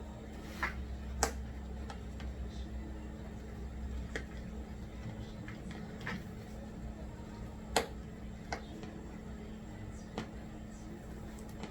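Unboxing handling noise: scattered light clicks and taps as a boxed headphone stand and its packaging are handled and opened, over a steady low hum.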